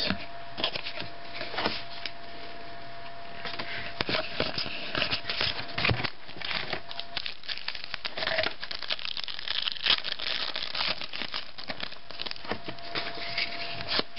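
Trading cards being slid and flipped by hand, and the foil wrapper of a card pack crinkling and tearing as it is opened: a run of irregular small rustles and clicks, busiest midway.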